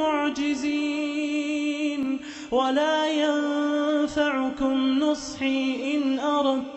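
A man reciting the Quran in slow, melodic tajwid style, drawing out long ornamented notes, with a short breath about two seconds in.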